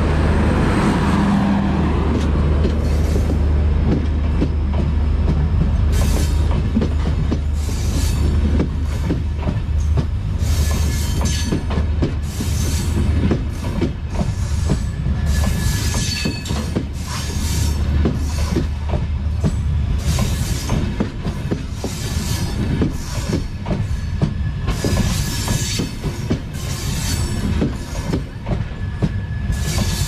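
Passenger train coaches rolling past close by: a steady deep rumble with dense wheel clatter, and now and then a thin high squeal from the wheels.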